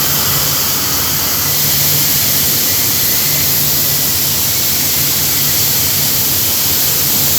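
CNC cutting torch running through a cut: a loud, steady hiss with a low hum beneath it.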